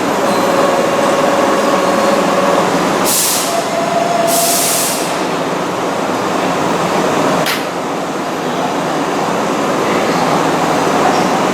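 Keihan electric train in the station: steady running noise with a motor whine for the first couple of seconds, two short hisses of air about three and four seconds in, and a single sharp click a little past the middle.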